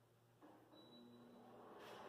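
Near silence, with the faint rush of a portable air conditioner's fan starting up and slowly growing louder from about half a second in.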